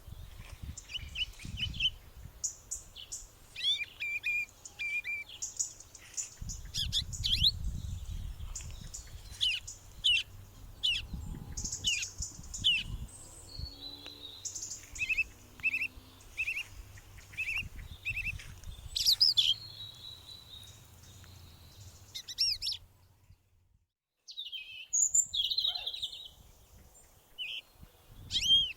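Small songbirds chirping and singing in many short, quick calls and trills, with a low rumble underneath for much of the time. The sound cuts out briefly about 23 seconds in.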